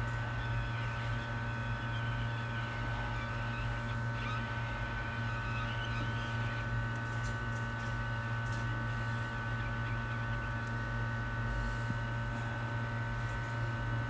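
Steady electrical hum with a few steady whining tones above it and a faint scratchy hiss in the first half.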